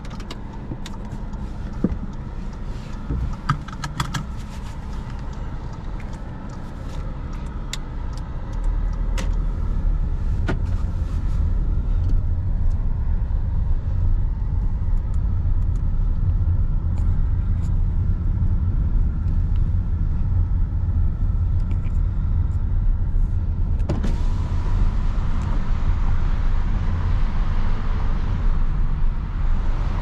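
Interior sound of an Audi A3 30 TFSI on the move: a steady low engine and road rumble, with a few sharp clicks and knocks in the first ten seconds. The rumble grows louder about nine seconds in, and a broader hiss of tyre and wind noise rises around two-thirds of the way through.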